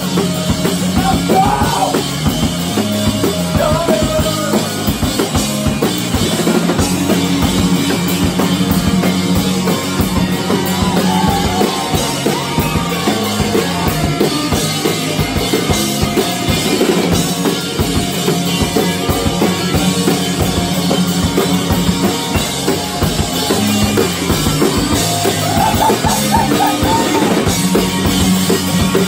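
Live rock band playing loud in a small room: drum kit keeping a steady beat under electric guitars and bass.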